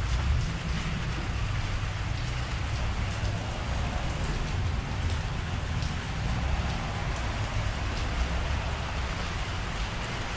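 Steady rain falling on an awning and wet pavement, with scattered drip ticks over a constant low rumble.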